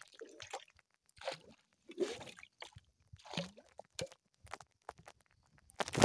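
Water splashing and gurgling against a small wooden boat in short bursts about once a second, ending in a loud rustle as a hand brushes over the phone's microphone.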